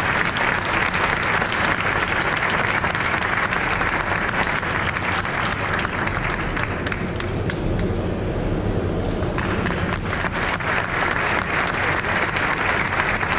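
Audience applauding: dense, steady clapping from a seated crowd, briefly duller for about two seconds in the middle.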